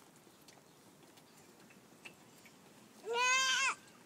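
A toddler's short, high-pitched wavering cry, under a second long, about three seconds in.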